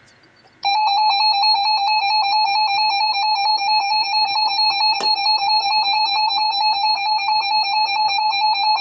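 Emergency Alert System two-tone attention signal (853 and 960 Hz together) comes on under a second in and holds steady and loud, with an even waver. It announces that a new warning is about to be read.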